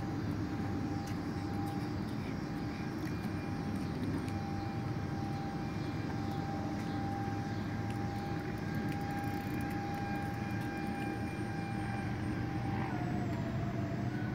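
Electric ducted fan jets of a radio-controlled Airbus A330 model airliner in flight: a steady high whine over a rushing noise. Near the end the whine's pitch dips briefly.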